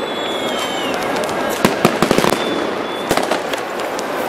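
Fireworks and firecrackers going off all around: sharp bangs in quick clusters, about one and a half to two and a half seconds in and again around three seconds, over a steady noisy background. In the first second a high whistle slides down in pitch.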